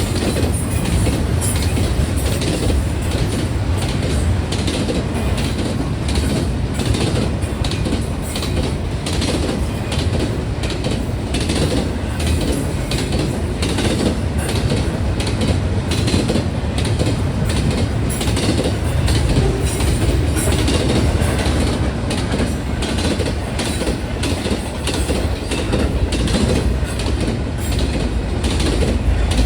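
Freight train cars rolling past at speed, a steady rumble of steel wheels on rail with rapid, repeated clacks as the wheels strike rail joints.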